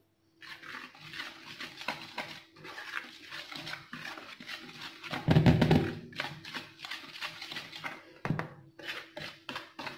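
Wire balloon whisk stirring and scraping through dry flour mix in a plastic bowl: a run of quick, scratchy strokes, with a louder dull bump about halfway through.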